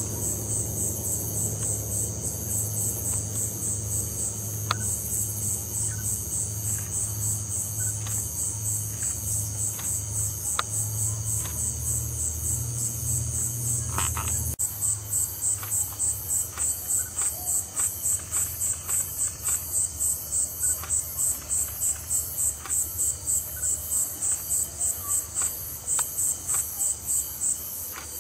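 Night-time insect chorus: a high-pitched trill pulsing evenly about three times a second, with a low pulsing hum underneath that stops abruptly about halfway through, and a few faint clicks.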